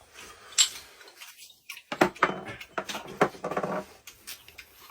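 Tableware clinking and clicking during a meal, chopsticks against plates and bowls, in a run of sharp taps with a short hum of a voice among them a little over three seconds in.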